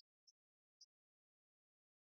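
Near silence, with three faint, very short clicks in the first second.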